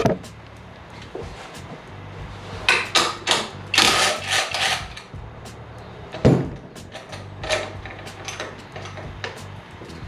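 Hands working on motorcycle parts with tools: scattered clicks and light knocks, a cluster of louder scraping noises from about three to five seconds in, and a single sharp knock a little after six seconds.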